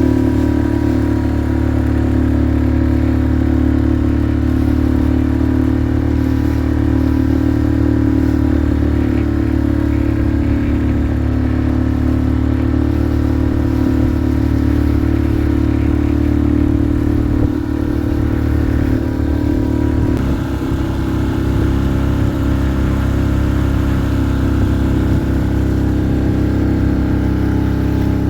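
A small boat's engine running steadily at a constant speed, its note shifting slightly about twenty seconds in.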